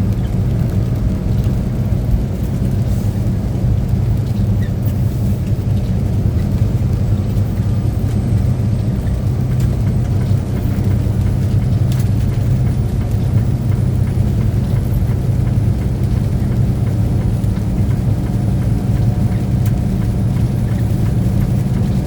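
Steady low rumble of a truck's engine and road noise heard from inside the cab while driving.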